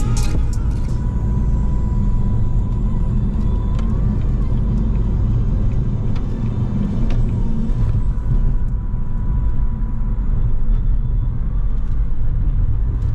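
Steady low rumble of a car on the move, engine and road noise without a break; a faint steady tone runs through the first half.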